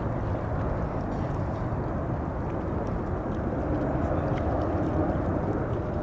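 Airliner jet engines heard from a distance, a steady low rumble with no change in level.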